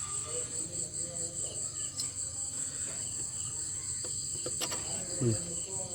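Crickets chirping steadily in a continuous high, pulsing trill, with a couple of faint sharp clicks in the middle.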